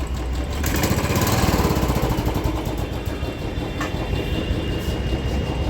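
Royal Enfield Bullet's single-cylinder carburetted engine idling with a steady, even beat through the stock silencer, a little louder for about a second and a half early on. It runs smooth and without knocking on freshly changed engine oil.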